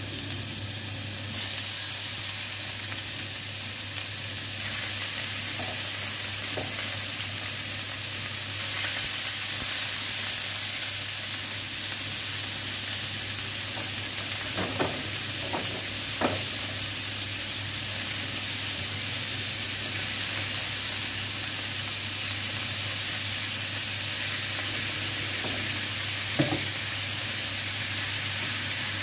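Chicken pieces sizzling steadily as they fry in hot oil in a pan, with a few sharp clicks of metal tongs as pieces are added and moved.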